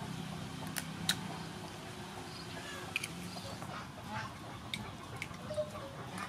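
A metal spoon clinking against a stainless-steel bowl while stirring raw chicken wings with egg: a few sharp, separate clicks over a low steady background.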